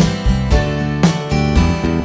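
Background music: acoustic guitar chords struck in a steady rhythm, about one a second.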